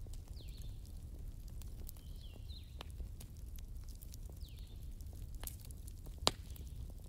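Low steady background hum with scattered light clicks and one sharp click about six seconds in; short high chirps recur every couple of seconds.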